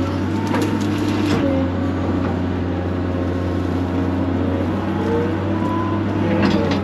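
Excavator's diesel engine running steadily under load while digging, with faint whines from the hydraulics shifting in pitch and a few short knocks.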